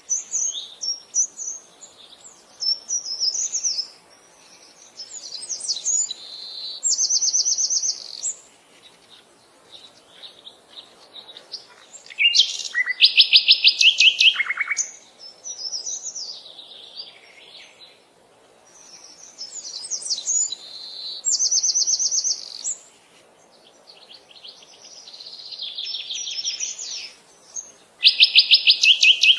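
Songbirds singing: bursts of high, varied chirping phrases broken by fast trills of evenly repeated notes, each about a second long, coming back every several seconds.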